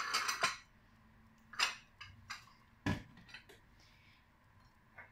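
Kitchen dishes clinking and knocking on a stone countertop: a short clatter at the start, then a few scattered light clinks and taps, with one duller knock about three seconds in.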